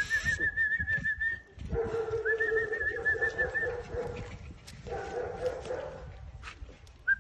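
Caucasian Shepherd puppies whining: several high, wavering whines of a second or two each, some overlapping, with a lower whine joining in.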